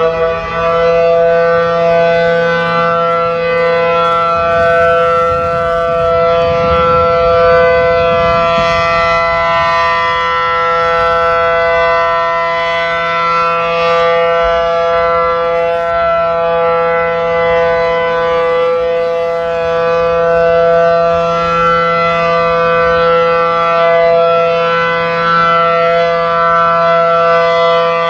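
A siren sounding a steady, held chord of several tones without a rise or fall in pitch. A low rumble joins it about six to nine seconds in.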